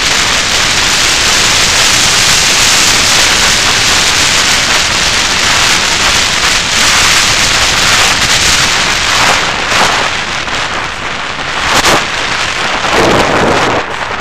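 Loud rushing airflow on the onboard camera microphone of an FPV Raptor model airplane in flight. It is a steady hiss with no clear motor tone, and it wavers and dips in the last few seconds as the plane descends low over the street.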